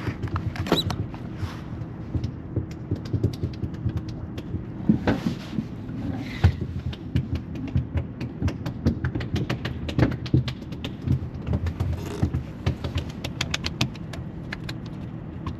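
Irregular clicks, knocks and scrapes of fishing gear being handled on a boat, over a low steady rumble.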